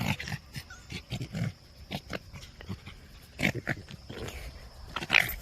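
Pet foxes vocalizing in short, scattered sounds while jostling for treats.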